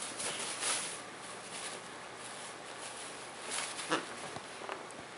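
A corgi tussling with a plush toy while standing on a loose paper sheet: uneven rustling and crinkling of the paper, with a short sharper sound about four seconds in.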